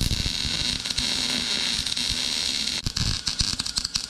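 Wire-feed welder arc crackling and sizzling while a bead is laid on a steel expanded-metal grate. The arc drops out briefly about three seconds in, then strikes again.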